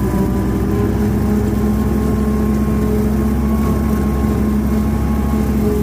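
Massey Ferguson 1532 compact tractor's diesel engine running steadily at a fixed working speed, powering a Land Pride rotary cutter (bush hog) mowing thick brush.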